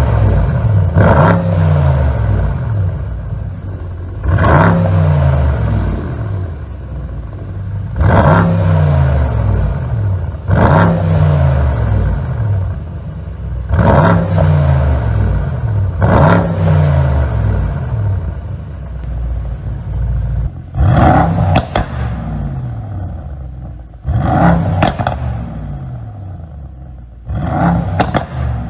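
Mercedes-AMG GT63 S's twin-turbo V8 being blipped, about every three seconds, each rev sharp then falling in pitch as it dies away, with pops and crackles from the exhaust on the overrun, the sign of a pop-and-bang ECU tune. In the last third the blips come shorter and closer together, with sharper cracks.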